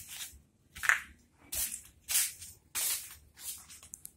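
Footsteps scuffing on wet concrete, a short hissing scuff about every two-thirds of a second at a walking pace.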